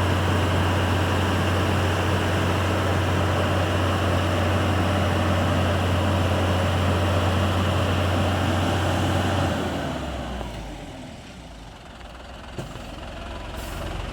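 Hino concrete mixer truck's diesel engine running steadily at raised revs with a strong low hum, then dropping back to a quieter low idle about ten seconds in.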